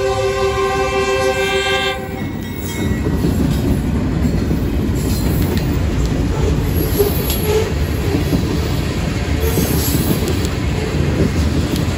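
A BNSF GE Dash-9 freight locomotive's multi-note air horn sounds a chord for the grade crossing and cuts off about two seconds in. Then the locomotives and a long string of grain-loaded covered hopper cars rumble past close by, with steady wheel-on-rail clatter.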